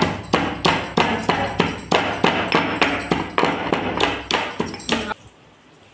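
Stone pestle pounding garlic and cumin seed in a heavy stone mortar, about four steady thuds a second, stopping suddenly about five seconds in.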